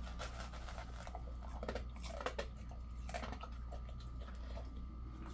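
Jindo-mix dog eating dry kibble from a stainless steel bowl: a few short bouts of crunching and clicking.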